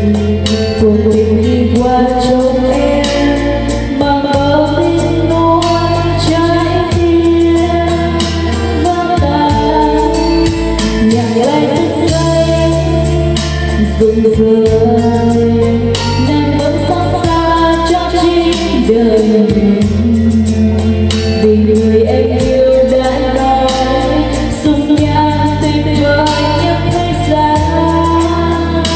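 A woman sings karaoke into a microphone over a backing track with heavy bass and a steady drum beat, played loud through a large karaoke speaker cabinet with two big bass woofers.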